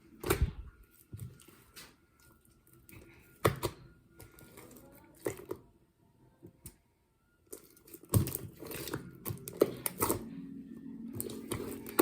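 Slime being squished and pressed by hand, giving off sharp pops and clicks. A few single pops come first, then a dense run of crackling pops starts about eight seconds in.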